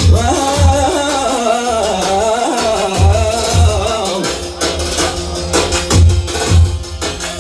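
Folk music: a wavering, ornamented melody line over a heavy, steady drum beat. The melody fades about halfway through, leaving mainly the drums.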